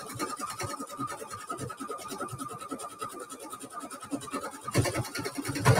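Singer Heavy Duty 6800C computerized sewing machine stitching steadily at speed: rapid needle strokes over a constant motor whine, louder for the last second.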